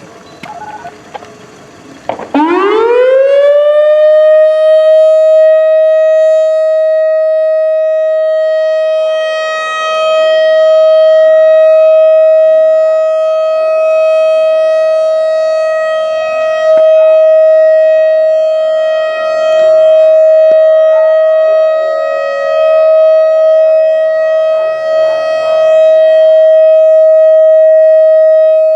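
Whelen WS-3016 outdoor warning siren winding up about two seconds in, its pitch rising fast, then holding a steady tone for a test. The tone swells and fades every few seconds.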